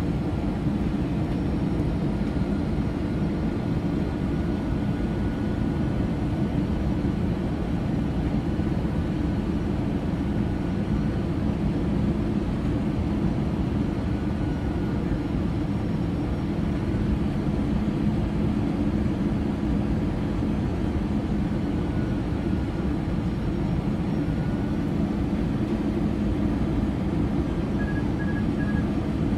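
Steady cabin noise of an Airbus A320 descending on final approach, heard from a window seat beside its CFM56-5B engine: an even engine hum mixed with the rush of air past the fuselage.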